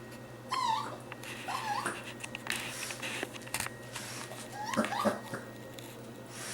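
Young raccoon calling: short, high cries that slide in pitch, in small groups about half a second in, near two seconds, and again about five seconds in. A few soft clicks come between the groups.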